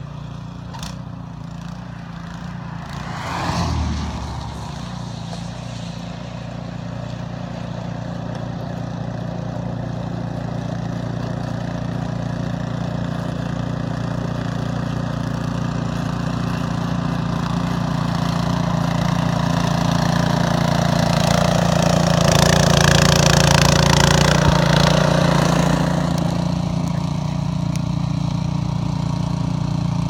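A walk-behind gasoline snowblower's engine runs steadily and grows louder as it comes closer. About three to four seconds in there is a brief falling whoosh. Later it swells to a louder rush for a few seconds as the machine passes close by.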